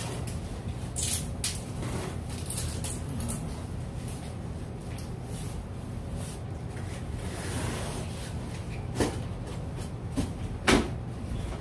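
Cardboard box being handled and packed: rustling and scraping with a few sharp knocks, the loudest near the end, over a steady low hum.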